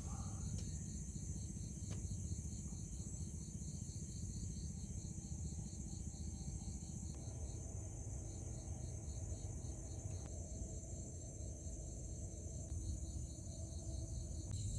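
Insects chirping in a steady rhythm of about four high pulses a second, pausing briefly just past halfway, over a constant high-pitched insect drone and a low rumble.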